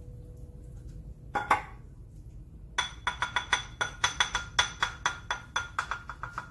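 A slotted serving spoon is knocked against the rim of a white ceramic bowl to shake off a serving of shepherd's pie. There is one knock, then, from about halfway, a quick run of ringing clinks, four or five a second.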